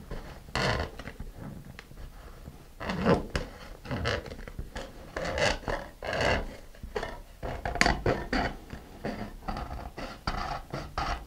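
Fine-toothed razor saw cutting through a plastic model-rocket nose cone, in short, irregular scraping strokes.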